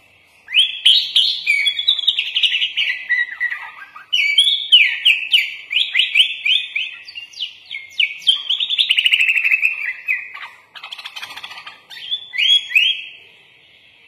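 Sooty-headed bulbul (kutilang) singing rapid runs of quick, downward-sweeping whistled notes in three bouts with short breaks. It is a 'full isian' song, packed with phrases copied from other birds.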